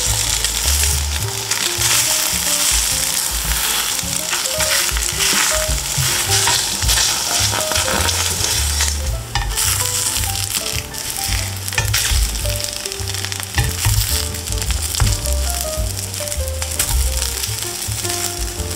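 Egg pancakes with crab stick and wood ear mushroom sizzling steadily in oil in a frying pan, with the occasional scrape and tap of a spatula against the pan.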